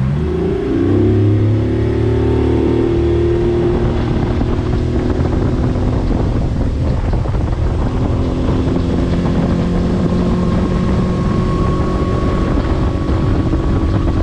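Jon boat's outboard motor throttling up about half a second in, then running steadily under way.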